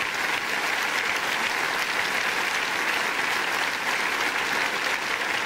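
Studio audience applauding steadily, a dense even clapping from a large crowd.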